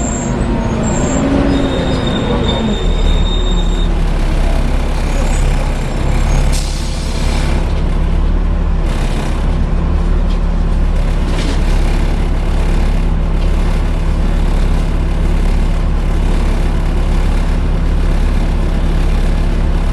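Interior noise of a Volvo B7TL double-decker bus on the move: the engine's steady drone with its cooling fan 'hoovering loudly', a strong hum that firms up a few seconds in. A few short hisses come about halfway through.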